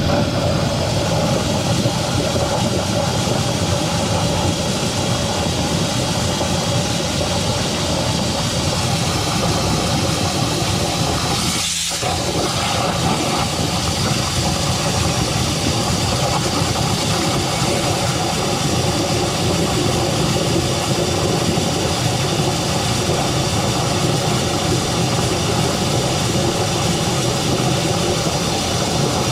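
Drain jetter's engine running steadily, with a steady hiss over it; the sound dips briefly about twelve seconds in.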